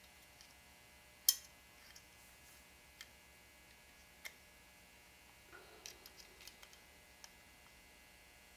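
Steel scribe and screwdriver clicking and scraping against the small steel lockwork parts inside a Rossi Model 69 revolver frame: one sharp metallic click about a second in, then scattered light ticks, with a short run of ticks and faint rubbing a little past the middle.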